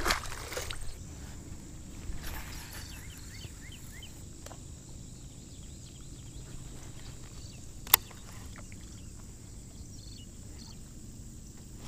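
A released bass splashing into the pond at the start, then quiet outdoor ambience with a few faint high chirps and a single sharp click about eight seconds in.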